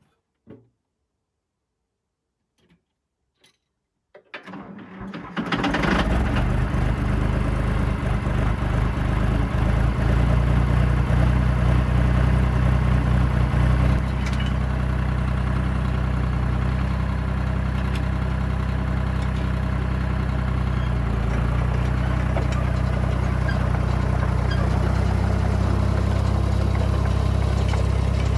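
A few faint clicks, then a John Deere bulldozer's diesel engine cranks and catches about four seconds in and settles into a steady idle, dropping a little in level about fourteen seconds in.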